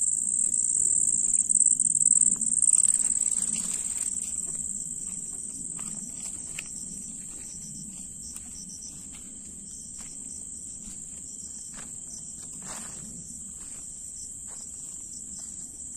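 Crickets chirring in a steady, continuous high trill, loud for the first few seconds and then fainter. Scattered light rustles and steps sound through it.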